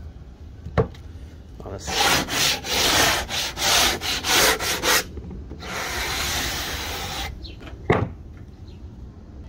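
Sanding block rubbed by hand along the edge of a half-inch MDF board: a run of about eight quick back-and-forth strokes, then one long stroke. There is a sharp knock shortly before the sanding and another just after it.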